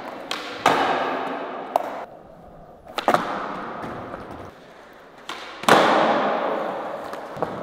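Skateboards snapping and landing with sharp clacks on a smooth concrete floor, each followed by the wheels rolling away and fading. The loudest clack and roll come about six seconds in.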